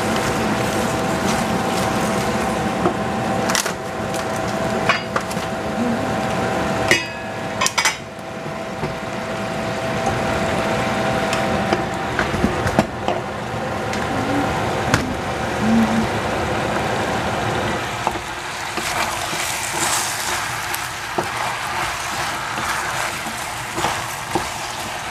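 Vegetables sizzling in a stainless steel saucepan while a wooden spatula stirs them, with scattered knocks and scrapes of the spatula against the pan.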